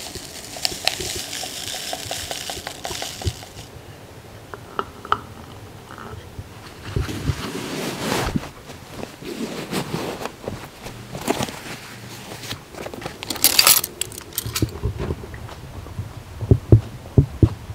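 Powdered drink mix poured from a stick packet into a plastic water bottle, a faint crinkling hiss with small clicks for the first few seconds. Then scattered clicks and knocks of gear being handled, a short loud rustle about two-thirds through, and a few heavy thumps near the end.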